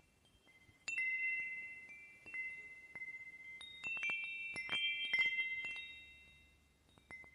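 Wind chime tinkling: several high notes struck at irregular moments and left ringing, a cluster of strikes about four to five seconds in, then dying away near the end.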